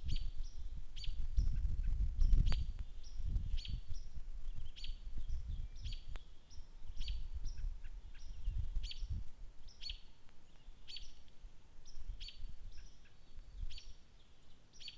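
American robin and chickadees calling: a short, high note repeated about twice a second, over a low rumble that is strongest in the first few seconds.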